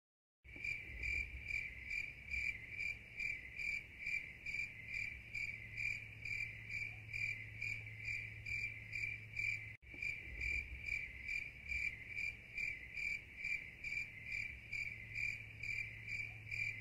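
Crickets chirping in a steady pulsing rhythm, about two to three chirps a second, over a low steady hum. The chirping starts about half a second in and cuts out for an instant near the middle.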